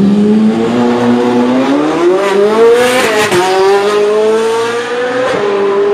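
Red Ferrari sports car's engine accelerating hard, its pitch climbing steadily, dropping sharply about halfway, then climbing again, with a smaller dip near the end.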